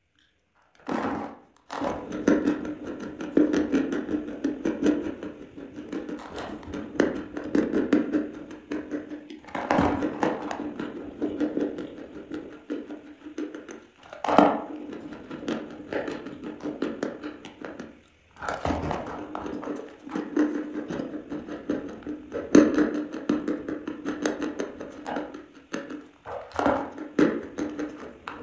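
Close-miked crunching and chewing of a dry chalk block: several loud, sharp crunches as bites are taken, with crumbly, gritty chewing between them.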